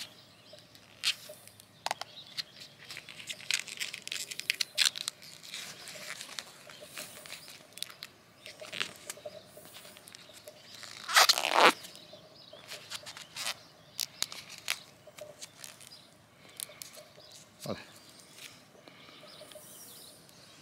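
Faint, scattered crackling and rustling of Parafilm grafting film being stretched and wound by hand around an olive scion. A brief louder sound with a falling pitch cuts in about eleven seconds in.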